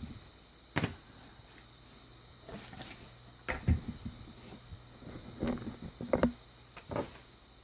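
Scattered small clicks and knocks as a padlock and lock-picking tools are handled, about half a dozen spread over several seconds, over a steady faint hiss.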